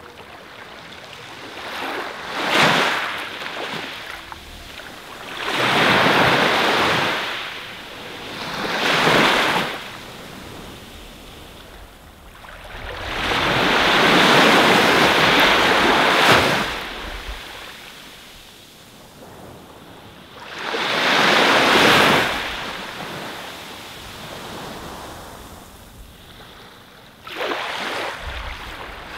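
Sea waves washing onto a sandy beach: a rushing surf that swells and fades in about six surges, the longest lasting a few seconds.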